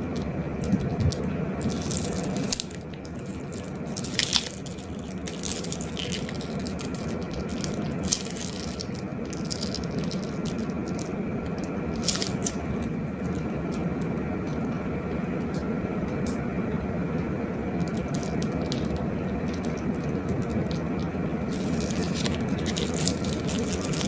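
Glossy slime being squished and worked, with wet squelches and scattered small crackling pops and clicks.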